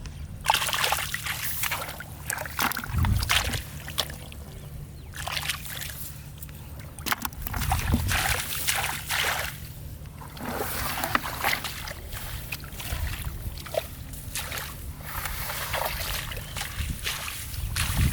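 Water splashing and sloshing in irregular bursts with short knocks, over a steady low hum.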